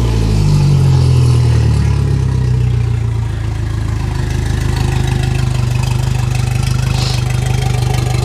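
2019 Mercury 90 hp four-stroke outboard engine running on flushing earmuffs just after starting, out of the water and in neutral. Its revs fall from a fast idle over the first few seconds and settle into a steady idle.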